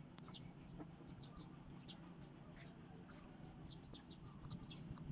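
Faint outdoor ambience: small birds giving short, scattered chirps over a low steady hum.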